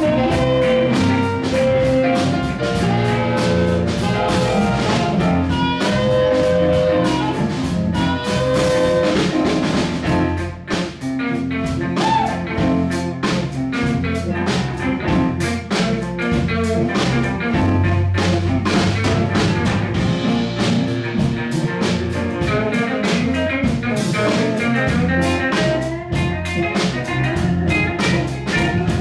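Live blues band playing: harmonica lead over electric guitar and drum kit keeping a steady beat. The harmonica holds long notes in the first part, with a short drop in the band about ten seconds in.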